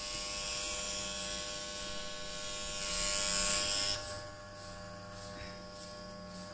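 Daiyamondo FYC RF-666 electric hair clipper running with a steady buzz, its blades cutting through leg hair. The cutting hiss is strongest in the first four seconds, then eases off while the motor buzz carries on.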